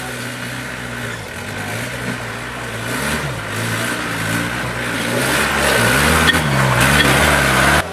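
Off-road vehicle's engine revving up and down several times under load, getting louder, then cutting off suddenly near the end.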